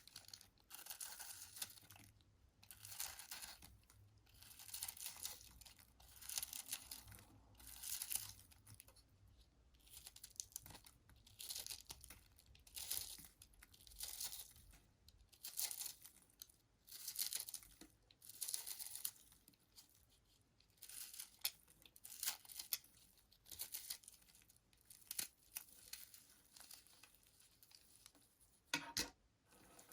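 Knife blade cutting through a bar of soap in repeated short strokes, each a dry, crisp scraping crunch, roughly one every second or so, with one sharper click near the end.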